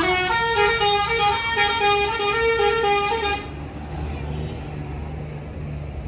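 Tour bus's 'basuri' telolet musical air horn playing a melody of stepped, held notes, cutting off about three and a half seconds in; the bus engine then runs on as a low steady hum.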